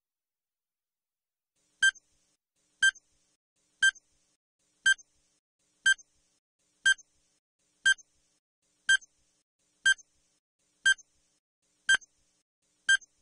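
Electronic countdown-timer beeps: twelve short, identical high beeps, one each second, starting about two seconds in, each marking a second ticked off the countdown.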